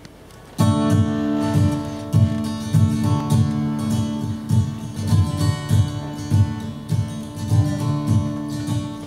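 Steel-string acoustic guitar playing the instrumental intro of a song, coming in about half a second in with a steady pulse of bass notes under sustained chords.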